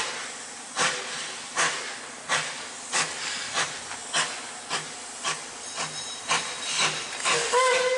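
Narrow-gauge NA-class 2-6-2T steam tank locomotive 7A getting under way, its exhaust chuffing in sharp beats over a steady hiss of steam. The beats quicken as it gathers speed, from a little over one a second at first to two or three a second by the end.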